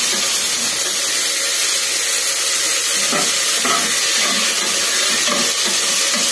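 Chopped onion and tomato frying in oil in an aluminium pressure cooker: a steady sizzle, with a few scrapes of stirring against the pot.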